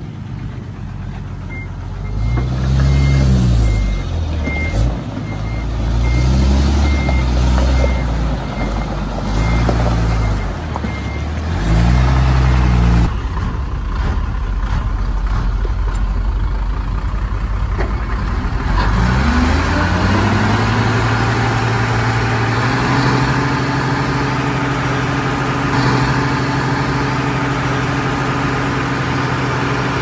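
Komatsu D20P bulldozer's diesel engine revving up and down repeatedly as the dozer works, with a reversing alarm beeping steadily through the first ten seconds or so. About 19 seconds in, the engine climbs and then holds a steady high speed.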